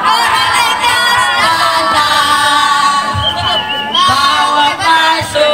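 A group of young people singing a yel-yel, a group cheer-song, together without instruments, many voices at once.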